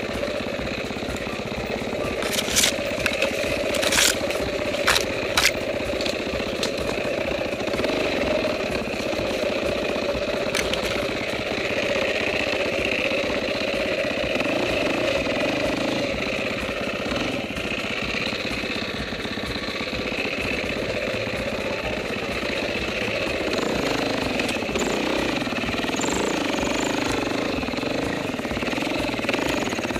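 Dirt bike engine running as the bike is ridden slowly over a rough trail, with several sharp knocks in the first few seconds. The engine note changes about two-thirds of the way through.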